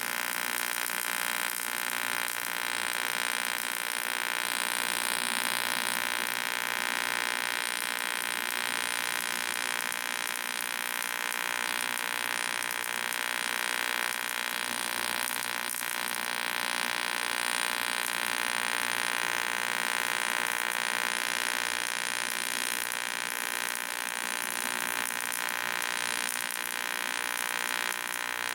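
AC TIG welding arc on thin aluminium can stock, a steady harsh buzz that starts abruptly and holds unbroken for nearly half a minute.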